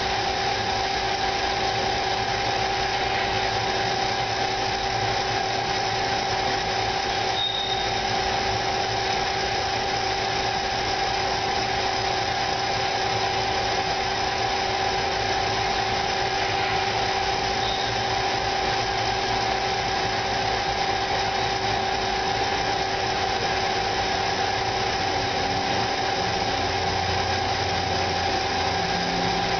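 CNC lathe with a live-tool-driven angle head running steadily: an even machine hum with a steady whine, and a brief high squeal about a third of the way in.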